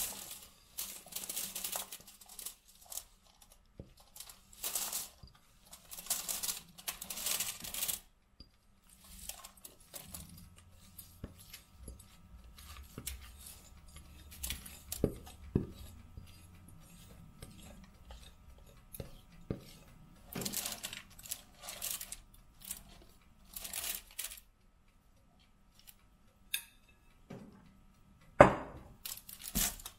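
Hand-mixing granola in a bowl: dry oats and nuts rustling and rattling against the bowl in repeated bursts, with the scrape and clink of a spoon. There is a sharper knock near the end.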